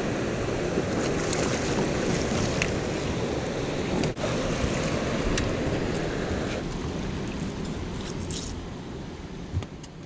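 Steady rush of wind and churning river water along the side of a drifting boat, with a few faint clicks and knocks as the catch is handled aboard. The rush eases off over the last few seconds.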